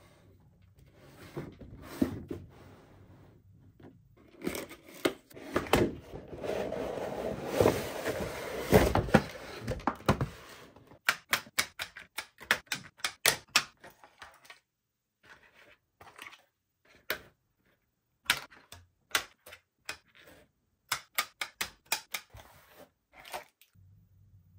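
Plastic toy packaging rustling and crinkling for several seconds, then a long run of sharp plastic clicks and taps as hard toy pieces are handled and snapped together.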